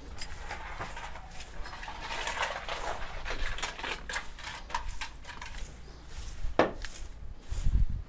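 Broom sweeping manure across a barn floor in irregular scraping strokes, with a sharp knock about six and a half seconds in and a dull thud near the end.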